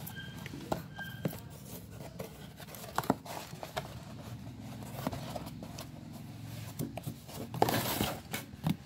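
Cardboard and plastic packaging being handled and opened: scattered taps and clicks, then a longer burst of tearing and crinkling near the end, over a low steady hum.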